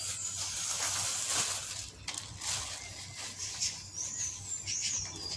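Thin plastic carrier bag rustling and crinkling as collard green leaves are packed into it, with a few short high chirps near the end.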